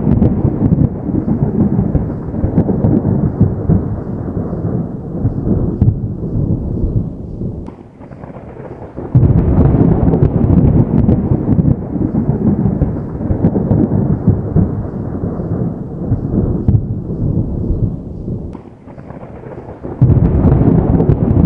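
Distant thunder: long rolling rumbles, each beginning suddenly and fading away over several seconds. A fresh peal breaks about nine seconds in and another near the end.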